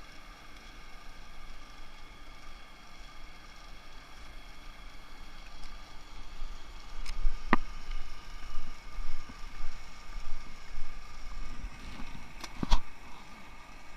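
A small engine running steadily with a thin whine over a low rumble. From about six seconds in, irregular gusts of noise rise over it, and there are two sharp clicks, one about halfway through and one near the end.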